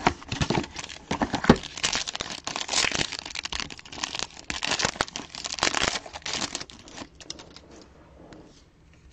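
Foil trading-card pack wrapper being torn open and crinkled by hand, a dense crackling that goes on for about seven seconds and then dies away.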